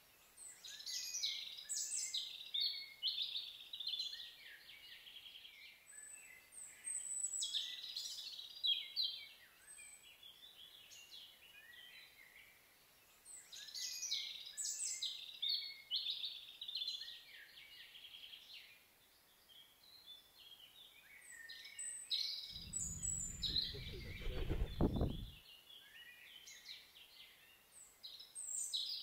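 Songbirds singing in bursts of high, varied chirping phrases every few seconds. About three quarters of the way through, a low rumble lasts a few seconds.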